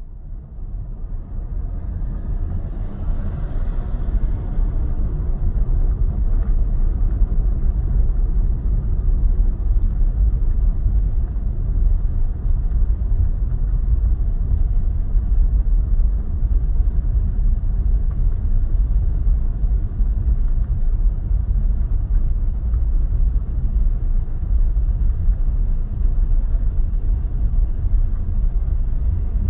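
Steady low rumble of a car driving slowly along city streets: engine and tyre noise, rising over the first couple of seconds and then holding even.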